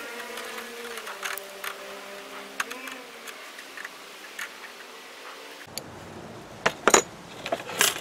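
Light metal clicks and clinks of pliers gripping and bending a wire against a wire-mesh basket, a few sharper, louder clicks coming in the last two seconds. A background motor drone fades out over the first few seconds.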